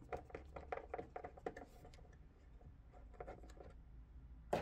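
T20 Torx screwdriver backing a screw out of a speaker cabinet: a run of quick, regular clicks as the driver turns, easing off about two seconds in, then a few more clicks and a single sharper knock near the end.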